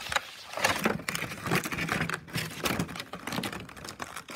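Stiff plastic blister packaging being bent and pried by hand while the toy is worked out of it: a run of irregular crinkles and clicks.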